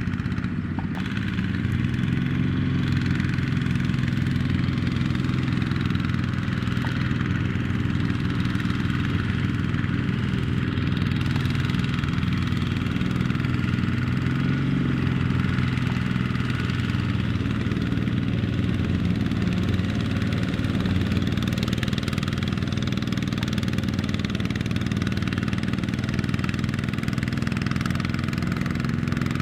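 Single-cylinder diesel engine of a Kubota mini tractor running steadily at a constant speed.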